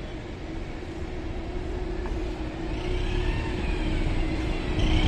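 City bus approaching and passing close by, its engine sound growing steadily louder, with a rising whine in the second half.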